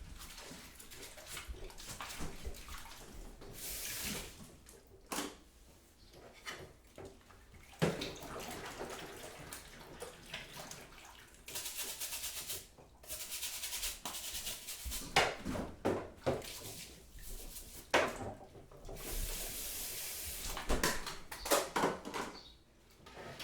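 Kitchen tap running in several short spells, with knocks and clatter of kitchen handling in between.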